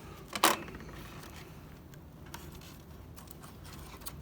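Bench handling sounds during a foam model repair: a short, sharp rustle or knock about half a second in, then faint small clicks and rustles of parts being handled.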